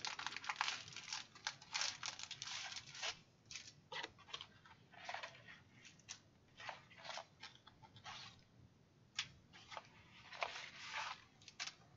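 Cardboard box being opened and plastic-wrapped items handled: irregular crinkling and rustling of plastic packaging, densest in the first three seconds, then in scattered short bursts.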